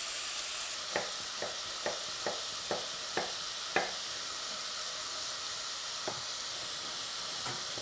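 Minced meat sizzling steadily as it browns in a pot over high heat, still giving off its liquid. A run of short light knocks from about a second in to nearly four seconds, and two more later, as the wooden spoon stirs it against the pot.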